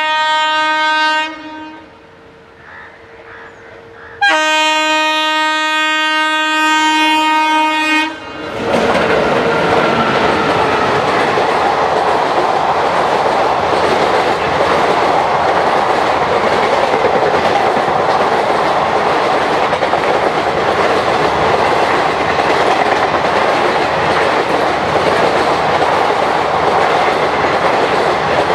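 An Indian Railways express train's locomotive horn sounds two long blasts on one steady note. The first ends about a second in and the second runs from about 4 to 8 seconds. The train then passes at speed: a loud, steady rumble with its wheels clattering rapidly over the rail joints.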